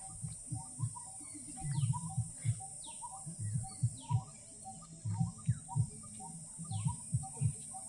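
Birds chirping in short, falling calls every second or so over a steady high hiss, with intermittent low muffled bumps.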